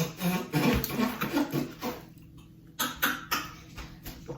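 Mouth and eating noises from a person at the table for the first second or two, then a few sharp clicks.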